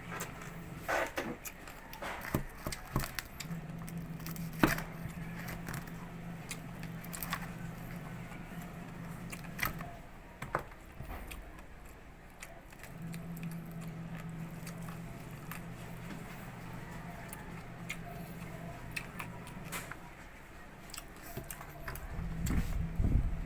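Close-up crunching and chewing of crispy deep-fried pig's face (maskara ng baboy): scattered sharp crackles, with a low hum coming and going underneath and a louder low rumble near the end.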